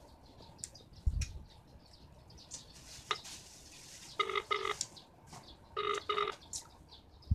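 Mobile phone on speaker playing the ringing tone of an outgoing call: short double beeps repeating about every second and a half, starting about four seconds in, after a few faint handling clicks. The call goes unanswered.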